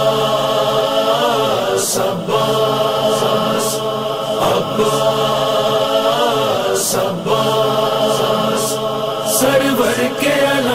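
Devotional vocal chant: voices without instruments holding long sung notes, in phrases of about two and a half seconds.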